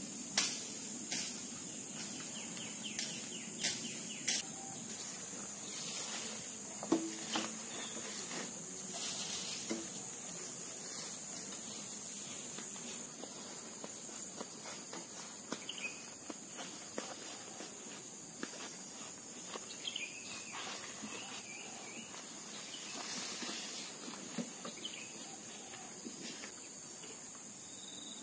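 Steady high-pitched insect chirring, with scattered sharp snaps and rustles of footsteps and brush as a bamboo pole is carried through the undergrowth; the snaps are loudest in the first few seconds.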